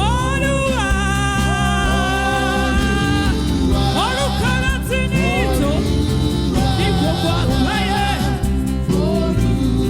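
Gospel music: a solo voice sings a long held note that bends at the start, then shorter rising and falling phrases, over a steady band backing with a bass line.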